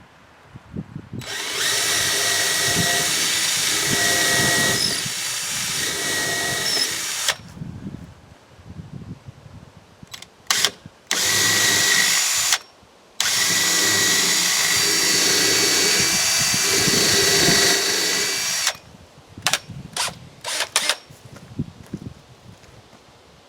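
A power drill running under load in two long runs of about six and five seconds, with short trigger blips between them and a few more after.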